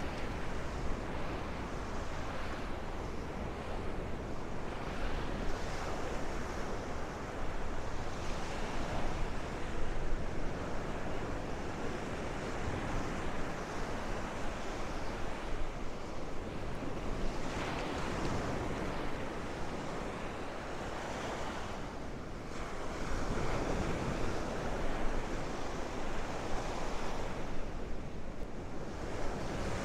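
Gulf of Mexico surf breaking and washing up a sandy beach, swelling and easing every few seconds, with wind buffeting the microphone.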